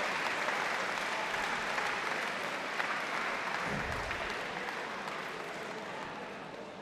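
Arena crowd applauding after a submission finish, a steady clapping that slowly dies down.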